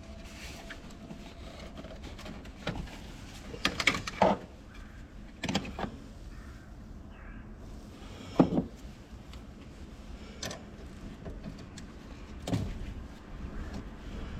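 Scattered knocks and clunks of parts and tools being handled during a car battery replacement, about six separate hits, the loudest a little past the middle.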